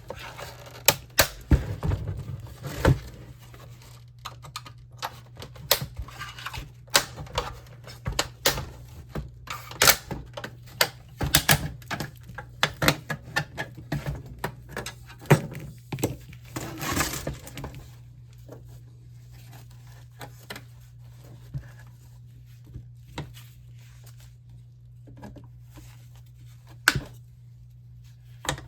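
Plastic front bezel of an LCD monitor being pried off with a flathead screwdriver: a rapid, irregular series of clicks, snaps and knocks as the snap clips give way, thinning to a few isolated knocks after about 18 seconds.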